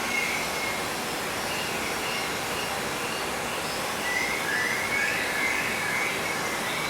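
Short high chirping bird calls, a few at a time, over a steady rushing background noise.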